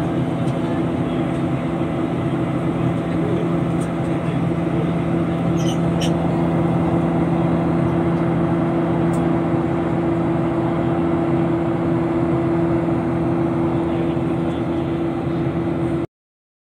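Boeing 737-800's CFM56-7B turbofan engines during the climb after takeoff, heard inside the cabin as a loud, steady rushing drone with a low hum. It cuts off suddenly near the end.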